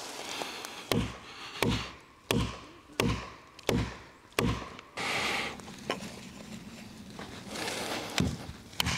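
Hammer blows on a felling wedge in the cut of a tree that is holding and will not fall: six sharp strikes, evenly spaced, then a short rustling hiss and two more blows near the end.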